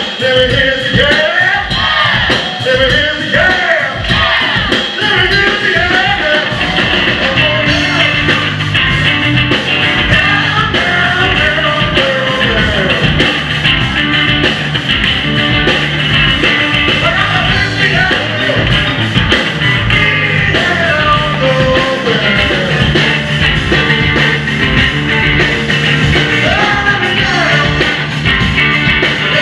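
A rock band playing loudly: drum kit, electric bass and distorted electric guitar, with a sung vocal over them.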